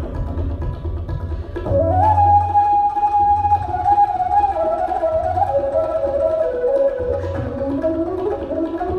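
Background music: a single melody line of held notes that slide from one pitch to the next, over a low, steady drum beat.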